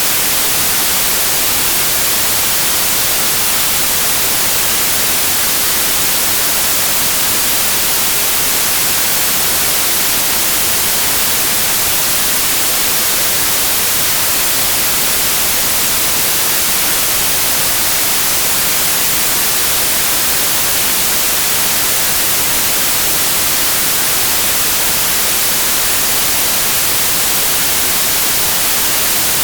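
Steady, loud white noise: an even hiss with no changes, played as a tinnitus masker.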